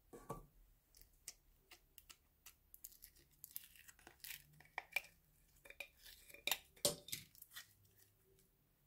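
Sticky orange clear slime pulled out of a metal tin by fingers: a run of small wet clicks and crackles. They grow busier a few seconds in, with the loudest pops about seven seconds in.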